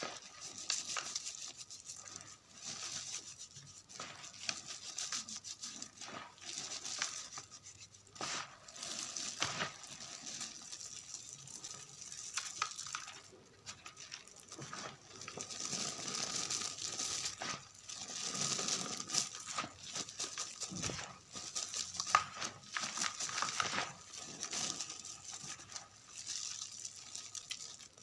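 Gym chalk mixed with confetti being crumbled and crushed, a dry, irregular crackling and crunching with louder moments scattered through.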